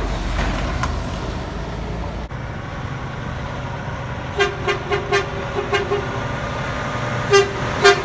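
A semi truck passing with low engine and tyre rumble. After a cut, another semi truck sounds its horn as it approaches: a quick run of about six short toots, then another toot and a longer one near the end, over the engine's low hum.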